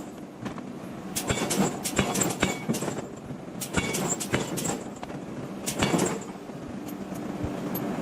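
Hammer blows forging a hot iron block: sharp metallic strikes with a brief ring, in quick irregular clusters, over a steady background noise.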